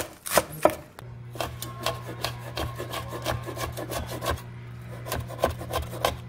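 Large kitchen knife chopping on a wooden cutting board: a few loud strokes through spring onions at the start, then from about a second in a quick run of lighter strokes as green chillies are minced, over a low steady hum.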